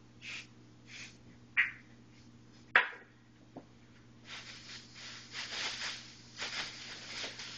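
Thin plastic bag rustling and crinkling as it is handled and opened. A few short rustles and a sharp click come first, the click about three seconds in and the loudest single sound. Steady crinkling follows from about four seconds on.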